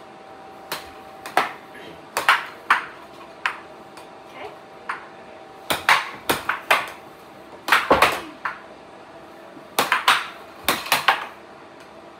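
Plastic air hockey puck clacking off the mallets and table rails in quick, irregular volleys during a rally, over the steady hum of the table's air blower.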